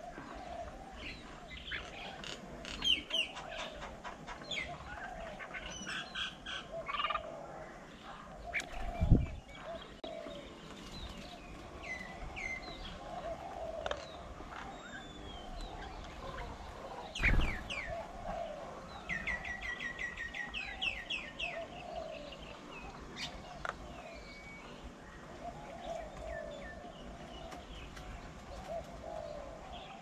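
Several birds calling at once, a mix of chirps and whistles, with a fast run of repeated notes about 19 seconds in. Two dull thumps stand out, about 9 and 17 seconds in, the first the loudest sound here.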